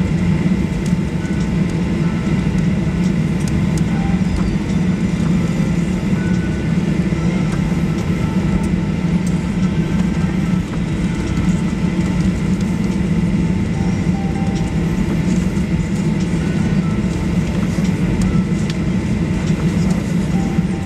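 Steady cabin rumble of a Boeing 737 Next Generation taxiing, its CFM56 engines at idle and the wheels rolling on the taxiway, with a faint steady whine above the rumble.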